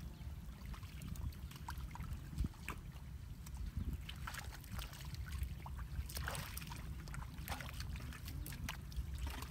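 Small, scattered splashes and sloshes of shallow muddy pond water over a steady low rumble.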